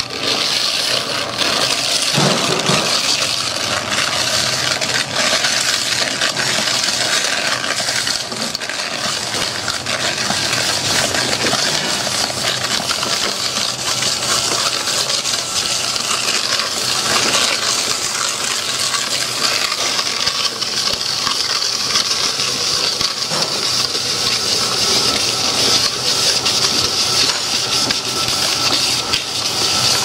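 Electric paddle mixer running steadily, its paddle churning a thick grey cement mix in a bucket, with a continuous rough churning noise and faint scattered clicks of the mix against the bucket.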